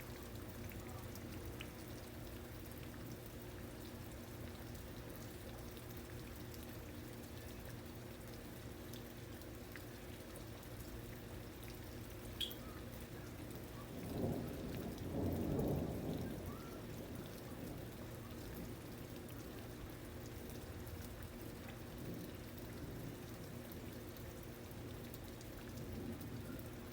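Steady rain falling, with a low rumble of thunder about halfway through.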